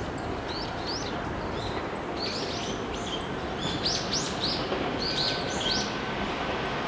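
Small birds chirping, many short rising-and-falling calls, over a steady background rumble. About five seconds in, a faint steady high tone begins.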